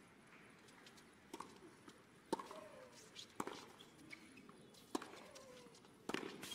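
Tennis ball struck by racquets in a rally on a hard court: five sharp hits about a second apart.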